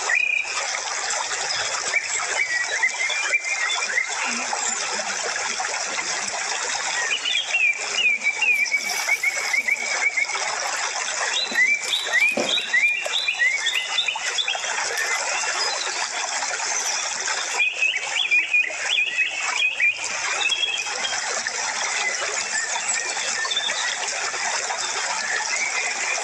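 Nature ambience: birds chirping in short runs every few seconds over a steady rush like running water.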